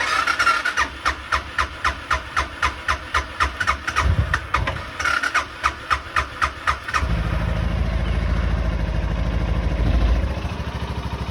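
Suzuki Boulevard S40's single-cylinder engine cranking on the electric starter, about four to five strokes a second, briefly catching about four seconds in. About seven seconds in it fires and runs, with a short rise near ten seconds, then settles to an idle. It is a start after months of sitting, on fresh oil, and the owner finds it sounds good.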